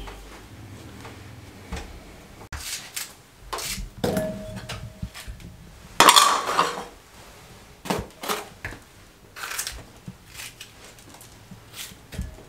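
Kitchen utensils and bowls clinking and knocking on a wooden table during food preparation: a metal masher, bowls being set down and stacked, and a knife cutting a green capsicum over a glass bowl. The knocks come scattered and short, with a louder clatter about six seconds in.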